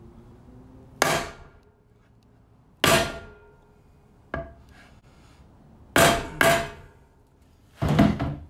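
A hammer strikes a wooden board held against a bicycle's bottom bracket shell, driving an eccentric adapter in flush. There are five sharp knocks a second or more apart, the fourth and fifth close together, each ringing briefly. A longer, heavier knock comes near the end.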